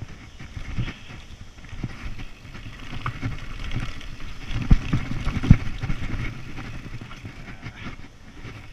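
Mountain bike riding fast down a dirt trail: tyres rolling over the ground with a steady rumble and rattle from the bike, and two hard knocks about halfway through, a little under a second apart.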